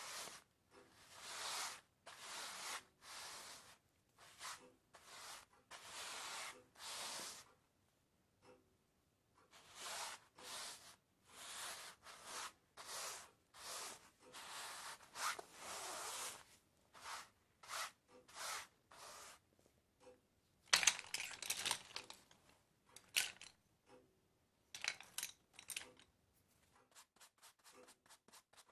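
A run of short, dry scraping and rustling noises from a sound-design score, each lasting under a second, with brief silences between them. From about 21 seconds in they give way to sharper, louder clicks and crackles, then quick faint ticks near the end.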